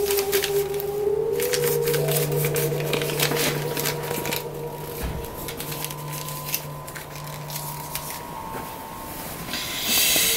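Eerie ambient drone music: a few held tones that waver slowly in pitch, with irregular faint crackling over them.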